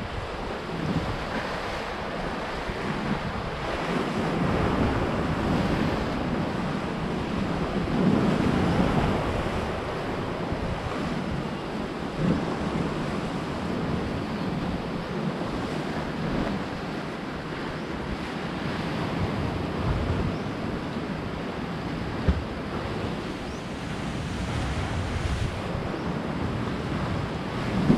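Waves washing onto the shore in slow surges every few seconds, with wind buffeting the microphone. There is one brief sharp knock about two-thirds of the way through.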